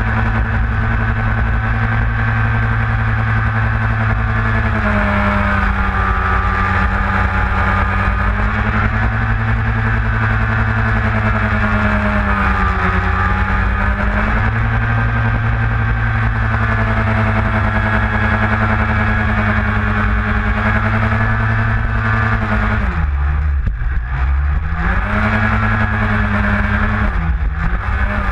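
Small outboard motor on an inflatable boat running hard at a steady pitch, easing off briefly a few times. About three-quarters of the way through the revs drop sharply and climb again, then fall once more near the end.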